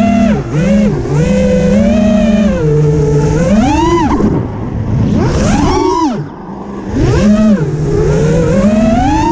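An engine revving up and down, its pitch climbing and then dropping sharply several times, as if through gear changes or throttle blips. A rough, rumbling noise runs under it, typical of wind buffeting the microphone.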